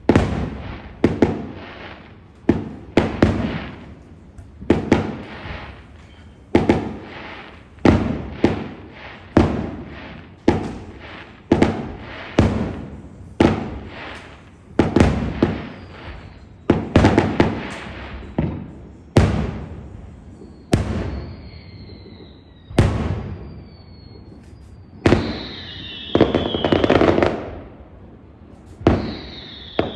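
Fireworks going off in quick succession, a loud bang about every second, each with a trailing rumble. In the last third, high whistles fall in pitch among the bangs, and one longer crackling burst comes near the end.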